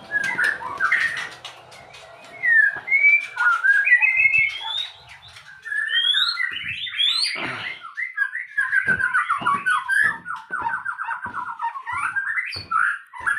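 White-rumped shama (murai batu) singing: loud, clear whistled phrases that glide up and down, then a fast run of repeated notes from about eight seconds in.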